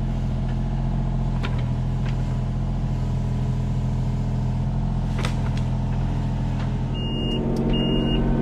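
Kubota U35-4 mini excavator's diesel engine running steadily under work, with a few sharp clicks. Near the end a high warning beep starts, repeating about every three-quarters of a second.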